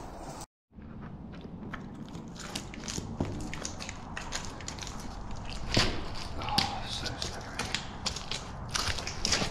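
Footsteps and scuffs on a stony, muddy cave floor, with irregular clicks and knocks of loose rock underfoot. The louder knocks come about six seconds in and near the end. The sound drops out for a moment about half a second in.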